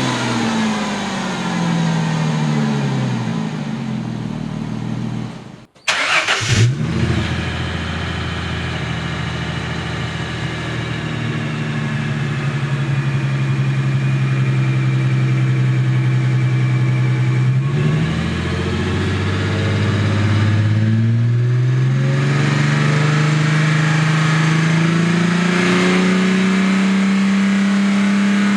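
Exhaust of a 3.8-litre V6 Mustang, freshly cold-started, revving and easing back down, cutting out briefly about six seconds in, then held at a steady fast idle before being raised in steps to a slowly climbing, held higher rpm.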